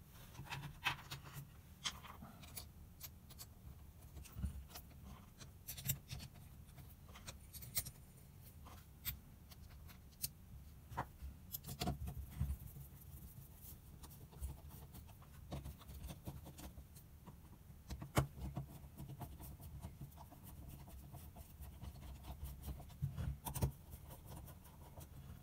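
Irregular small clicks and scrapes of a screwdriver turning the four small screws into the top cap of a Mikuni BS34 carburettor, with the metal carb body being shifted and turned by hand.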